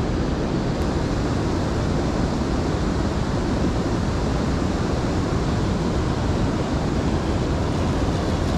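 Steady rushing of river water spilling over a low dam.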